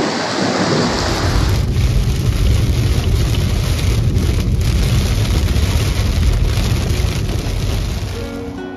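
Heavy rain falling, a steady downpour, with a strong low rumble joining underneath from about a second in and the rain fading near the end.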